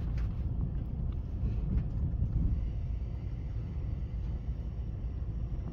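Passenger train running along the rails, heard from inside the carriage as a steady low rumble.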